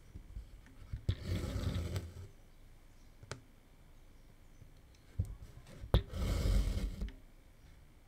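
Needle clicking through taut 18-count aida cloth in an embroidery hoop, then cotton floss pulled through with a swish lasting about a second; this happens twice, about a second in and near six seconds, with a few light ticks in between.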